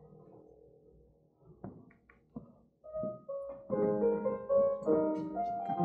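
Keyboard music: after a few soft taps, notes and chords played on a piano-like keyboard begin about three seconds in.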